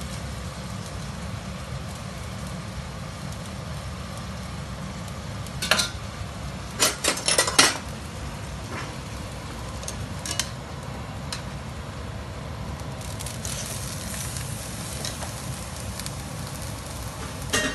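Tenderstem broccoli sizzling as it pan-fries on a gas hob, a steady hiss that grows brighter in the last few seconds. A quick run of knocks and clatters from pans and utensils about seven seconds in is the loudest sound, with a few single clicks after it.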